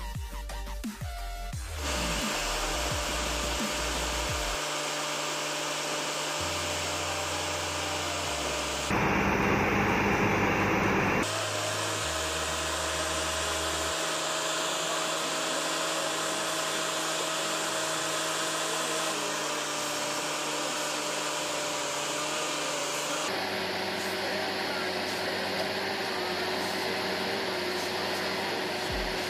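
Music with a beat for the first two seconds, then the steady whirr of a crane truck's engine and hydraulic pump running while the knuckle-boom crane is folded and stowed, with a louder surge about nine seconds in that lasts a couple of seconds.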